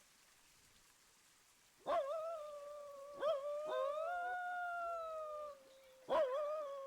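Coyotes howling: long, drawn-out calls that each start abruptly and hold a steady, slowly falling pitch, with several voices overlapping from about two seconds in and another howl starting near the end.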